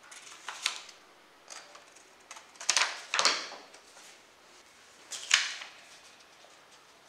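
Sheets of printer paper rustling and sliding over a wooden tabletop as they are laid out and lined up by hand, in several short rustles, the loudest about three and five seconds in.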